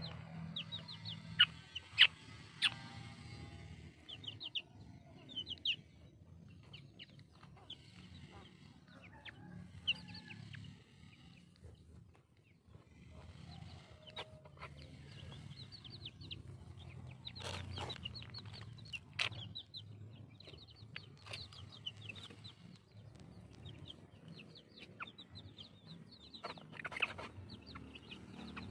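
Chickens clucking, with many short, high chirps repeating throughout and a few sharp knocks.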